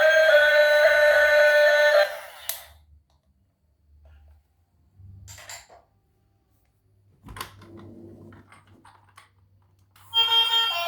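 Background music that cuts off about two seconds in, leaving a quiet stretch with a few faint clicks and light scraping, then music starts again near the end.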